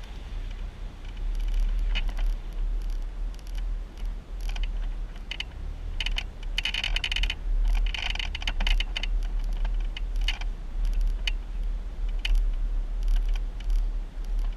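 Jeep crawling a rocky off-road trail: a steady low rumble under irregular clicking and rattling, busiest in the middle.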